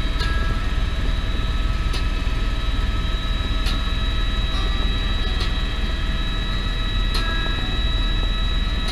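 Tour helicopter in cruising flight heard from inside the cabin: a steady drone of rotor and turbine noise with a constant high whine.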